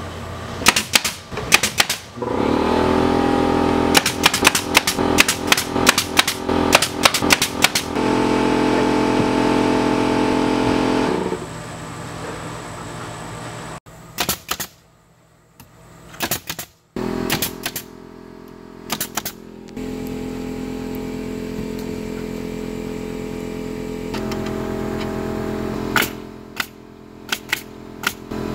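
DeWalt pneumatic nailer driving nails into wooden siding battens and trim, with single sharp snaps and quick runs of shots, over the steady hum of an air compressor. The sound drops out briefly about halfway through.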